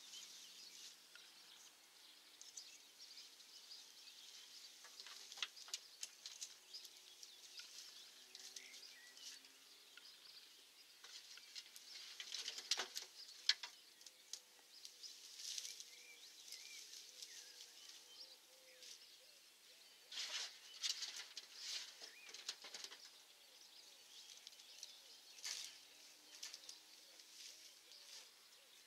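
Armfuls of cut grass rustling and crackling as they are handled and dropped as a mulch layer over planted potatoes. Faint, in uneven bouts, loudest about twelve to fourteen seconds in and again around twenty to twenty-two seconds.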